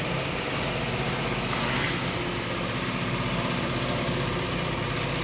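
Electric sewing machine running steadily as fabric is fed under the needle.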